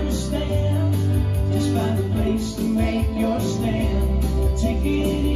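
Music playing: a song with singing and a steady beat over held bass notes.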